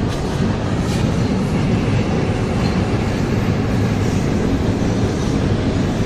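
Train crossing a steel truss railway bridge: a steady, low noise of wheels running on the rails, continuous throughout.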